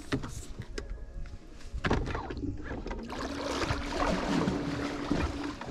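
Bass boat being poled through shallow water with a push pole: a few sharp knocks in the first two seconds, then water sloshing and splashing along the hull, with a steady low hum coming in about three seconds in.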